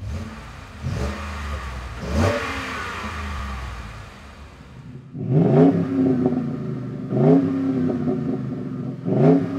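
Ford F-150's 5.0L Coyote V8 at idle, blipped twice through the stock exhaust. About five seconds in it switches to the same engine breathing through a Flowmaster American Thunder stainless cat-back with single side exit: a louder idle and three sharp revs that rise and fall quickly.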